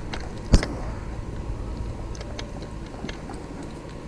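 Close handling noise as an angler deals with a small fish and his pole: one sharp knock about half a second in, then a few light clicks, over a low rumble of wind on the microphone.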